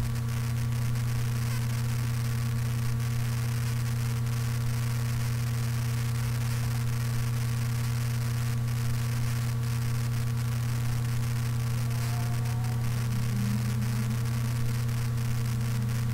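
Steady electrical hum from a microphone recording with noise suppression switched off, with a faint crackle like analog radio static.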